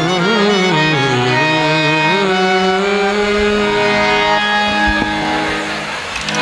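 Instrumental introduction on an electronic keyboard: a melody with bending, wavering notes for about two seconds, then steady held notes.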